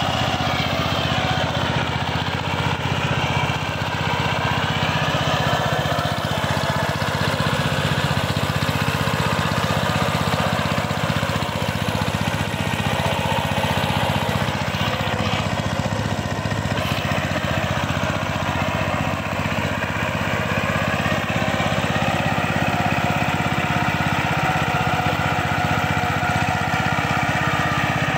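Two-wheel power tiller's single-cylinder diesel engine running steadily as the tiller churns through wet paddy mud.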